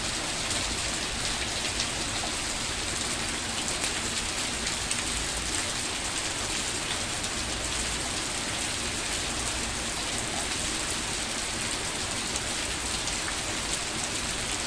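Steady rain falling, with the faint ticks of single drops hitting a surface.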